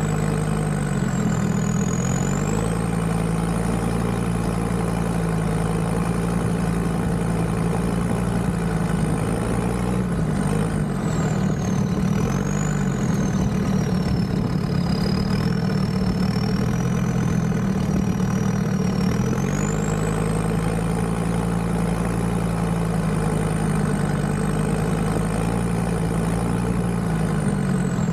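Land Rover Discovery 2's Td5 five-cylinder turbodiesel engine running steadily, its note rising and falling slowly as the revs change, with a thin high whine that follows the revs up and down.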